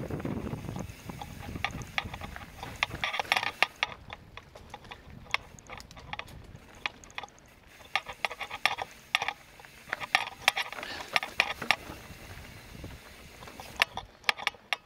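Mountain bike rattling and clicking over a rocky trail: sharp, irregular clicks coming in clusters, with wind rushing on the microphone for the first few seconds.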